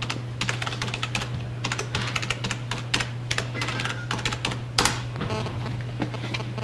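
Typing on a computer keyboard: irregular key clicks and taps, with one sharper click about five seconds in, over a steady low hum.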